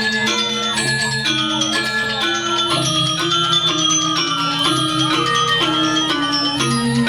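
Balinese gamelan music: bronze metallophones playing a fast, ringing pattern over a repeating lower melody.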